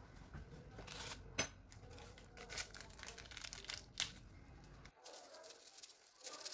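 Crinkling and rustling handling noises, with two sharp clicks about a second and a half in and about four seconds in.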